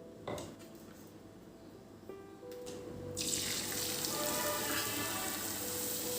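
Water starts running from a tap about halfway through, a steady hiss over soft background music.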